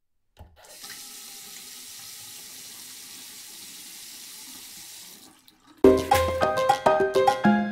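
Water running steadily from a tap for about five seconds, starting after a brief silence. Bright music with percussion then comes back in near the end.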